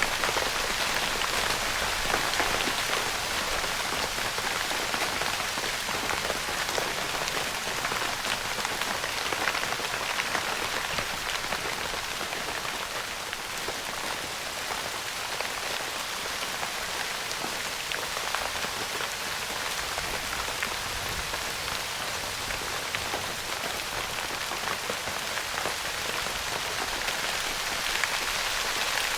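Steady rain pattering on a tent's fabric roof, a dense even hiss of many small drop impacts.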